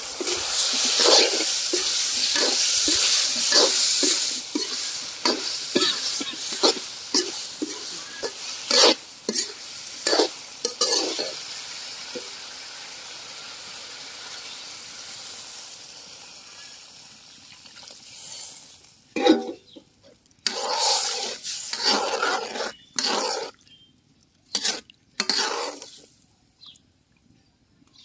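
Chopped stem-amaranth pieces frying with spices in an aluminium karai, sizzling steadily while a metal ladle stirs and scrapes the pan in regular strokes. The sizzle dies down after about twelve seconds. Near the end come several short loud bursts as water is added and stirred in.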